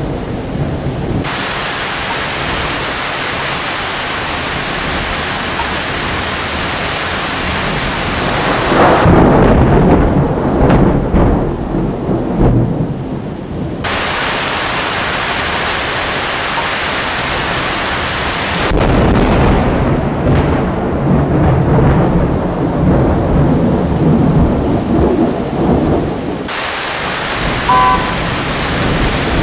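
Heavy thunderstorm: rain hissing steadily while thunder rumbles loudly, with a sharp thunderclap a little past halfway rolling on into a long, deep rumble. The sound jumps abruptly several times between separate claps.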